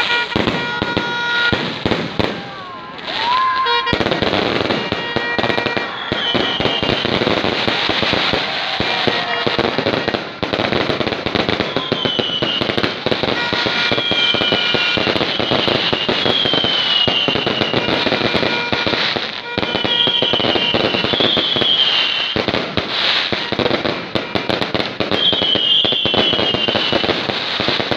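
Fireworks display: aerial shells bursting overhead in a dense, almost unbroken run of crackling and bangs, with a short lull about three seconds in. Short high falling whistles recur through the barrage.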